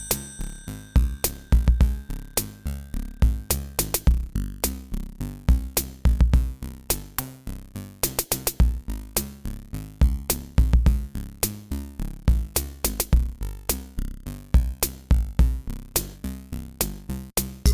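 Background music: an electronic track with a steady drum-machine beat and bass.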